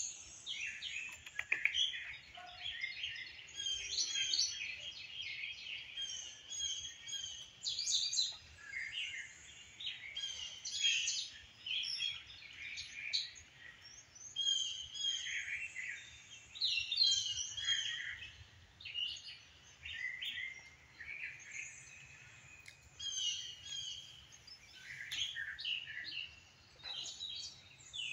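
Birds chirping and singing in a morning chorus: many short, high chirps and trills, overlapping, one after another, with little pause.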